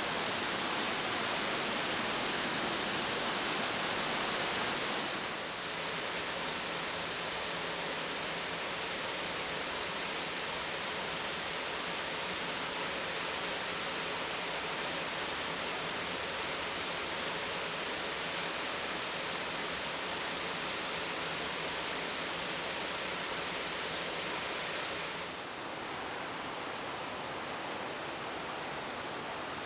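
Waterfall roar: a steady, full rushing noise of falling water. It steps down a little about five seconds in and again near the end, where it turns duller.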